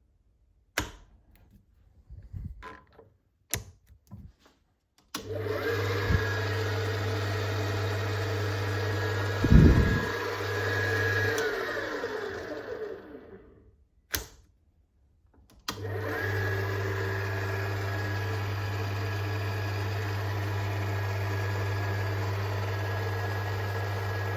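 Emco FB2 milling attachment's single-phase motor and oil-bathed geared head running with a steady hum, with one heavy knock partway through. It is switched off and spins down with falling pitch, then is started again and runs steadily. Before the first start and between the two runs there are a few clicks and knocks.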